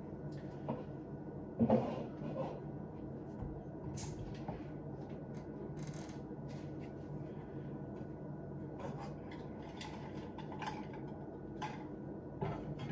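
Kitchen cupboard and dishes knocking and clinking, with scattered short knocks and clicks over a steady low hum as someone rummages for a drinking cup. The loudest knock comes about two seconds in.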